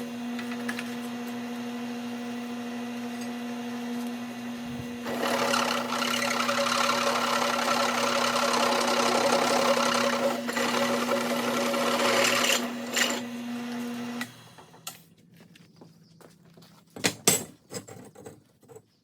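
Electric drill motor running steadily, its bit cutting into metal with a harsher grinding noise for several seconds in the middle. The motor stops about fourteen seconds in, followed by a few short knocks near the end.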